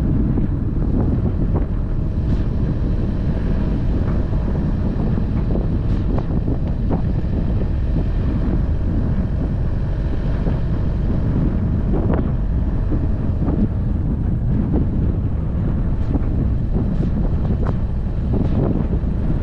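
Wind buffeting the microphone: a steady low rumble throughout, with a few faint knocks scattered through it.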